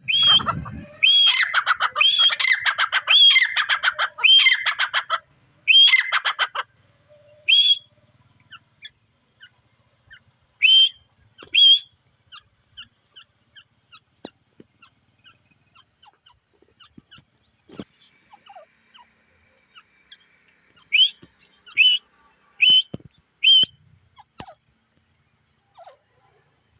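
Francolin (teetar) calling: a loud run of quick repeated call phrases for about the first six seconds, then single calls a few seconds apart with faint chirps between them, and a group of four calls about three-quarters of the way through.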